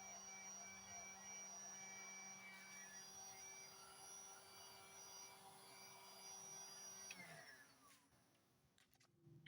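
Heat gun running with a steady motor whine, switched off about seven seconds in, its fan spinning down with a falling pitch.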